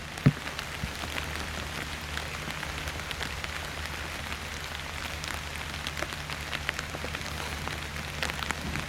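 Heavy steady rain, with single raindrops ticking sharply close to the microphone, over a steady low hum. A sharp knock sounds just after the start.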